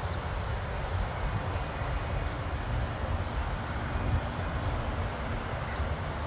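Aircraft on approach to land, its engines a steady distant rumble.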